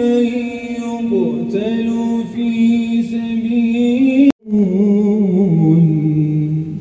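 A single man's voice chanting Islamic religious recitation in long, held, ornamented tones. About four seconds in it breaks off for an instant, then the chant goes on lower and steps downward.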